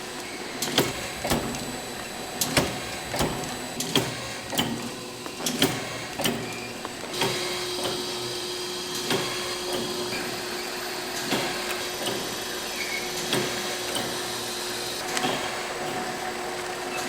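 Factory processing machinery running: sharp rhythmic clacks about twice a second, giving way about seven seconds in to a steady machine hum with a held tone and only occasional clacks.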